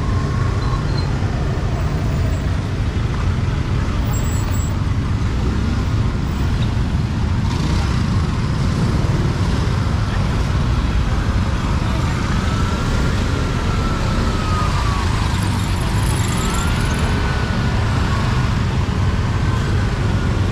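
Motor scooters and other vehicles running in a busy market street: a steady engine and traffic rumble. In the second half a faint tone rises and falls twice.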